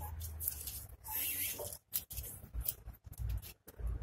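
Caliper rewind tool being turned by hand to screw the rear brake caliper piston back into its bore: irregular small metal scrapes and clicks.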